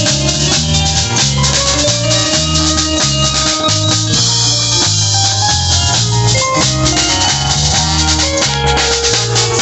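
Live band playing New Orleans-style music: drum kit keeping a steady beat under a moving bass line, with held melody notes above.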